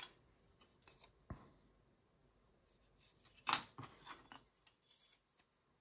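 Small clicks and taps of hand tools and plastic kit parts being handled at a hobby bench, with one louder, sharper click about three and a half seconds in.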